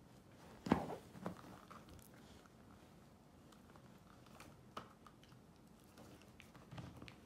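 Husky puppy gnawing a dog chew: scattered soft crunches and clicks of teeth on the chew and the fabric, with a sharp knock a little under a second in and another shortly after.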